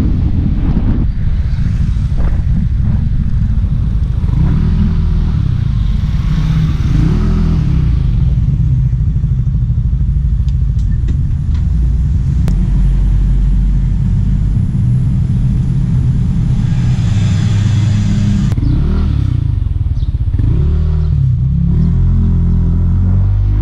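Yamaha motor scooter's engine and exhaust while riding: the engine note rises and falls as it speeds up and slows down twice, with a steadier, lower running stretch in the middle while the scooter is stopped.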